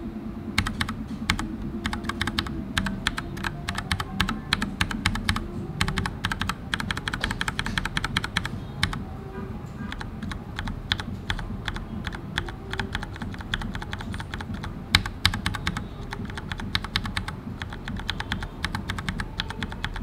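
Typing on a Filco mechanical keyboard with Cherry switches and thick PBT double-shot keycaps: a fast run of key clicks and clacks, with a short pause about nine seconds in.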